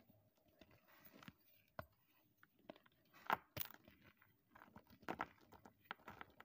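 Blocks of gym chalk crushed and crumbled by hand over loose chalk powder: irregular soft crunches and crackles, the sharpest crunch about halfway through.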